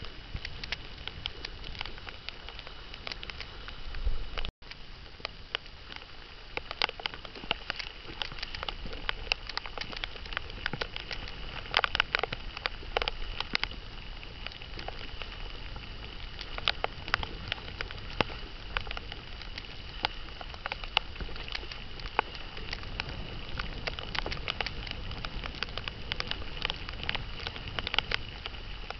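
Choppy water splashing and slapping against the hull of a Hobie tandem kayak sailing under wind: a crackling hiss of spray with frequent sharp slaps, heavier at times, and a brief dropout about four and a half seconds in.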